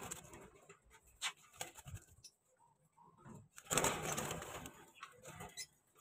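Young cockatiels making short, raspy calls, with a few sharp clicks; the loudest is a breathy burst about four seconds in.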